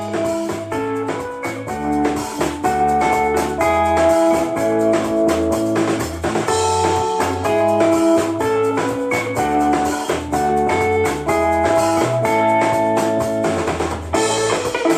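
A song with a steady drum beat playing from a Bluetooth speaker connected to a Samsung Galaxy M20, set to 75% volume for a loudness test.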